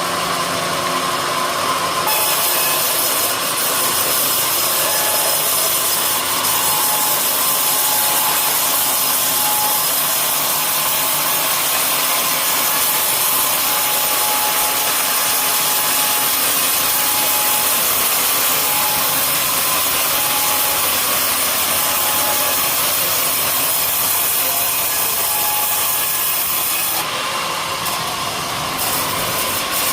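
Homemade sawmill blade cutting lengthwise through an old coconut palm trunk, a steady hissing cut that begins about two seconds in and stops a few seconds before the end. The machine runs without load before and after the cut.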